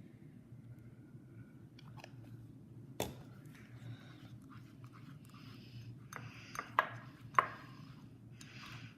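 Stirring wet, half-activated slime in a bowl with a spork: soft squishing and scraping, with a sharp tap about three seconds in and two louder clicks near the seven-second mark as the utensil knocks the bowl.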